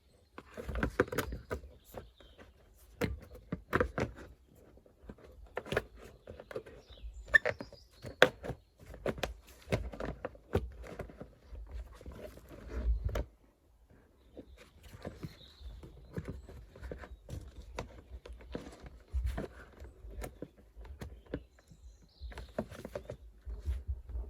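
Irregular clicks, knocks and rustling of hands working on car parts, with a few louder knocks scattered through.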